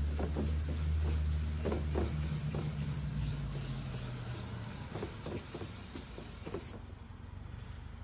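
Wet sandpaper rubbing in circles on a plastic headlight lens, hand wet-sanding off the old clear coat with 400 grit, over a steady hiss that cuts off suddenly near the end.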